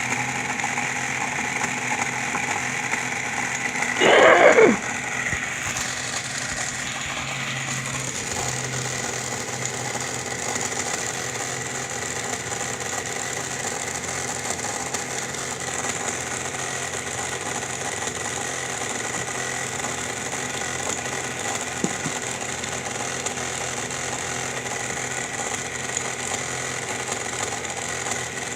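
Air conditioner running steadily, its compressor and blower fan making a continuous hum with several steady tones. About four seconds in, a brief loud sound falls steeply in pitch.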